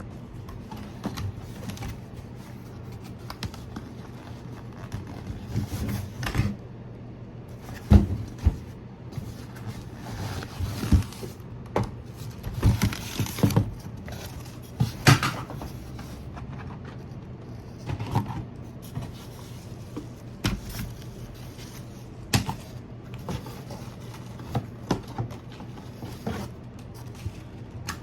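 Packaging being handled while a sewing machine is unboxed: scattered knocks, scrapes and rustles of cardboard and plastic over a steady low hum.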